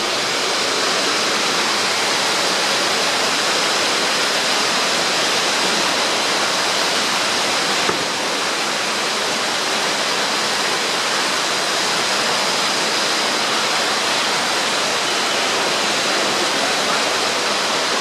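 Steady, even rush of falling water from the indoor rainforest's waterfall, unbroken throughout.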